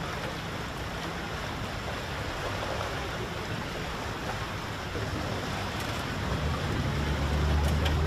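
Steady rush of wind and floodwater, with a low engine hum underneath that swells over the last two seconds.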